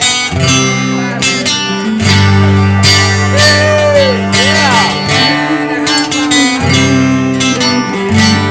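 Instrumental intro of a country song: strummed acoustic guitar with a band, the chords changing every second or two.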